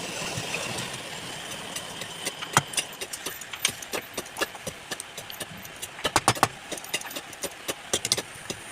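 Wood lathe running steadily, with irregular sharp clicks and knocks throughout, a cluster of them about six seconds in.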